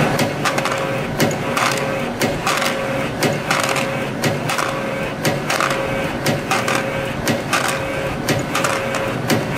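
YHM CF-310 CNC compression spring machine running, coiling 0.8 mm wire into curved springs: a steady hum broken by a repeating cycle of sharp clicks, about one spring a second.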